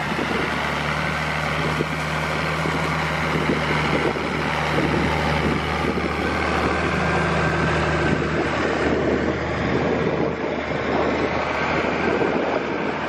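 Diesel engine of an AGCO Challenger tractor running steadily as it drives close past, pulling a grain cart, with wind buffeting the microphone. The engine hum fades about eight seconds in as the tractor moves on, leaving mostly wind and rolling noise.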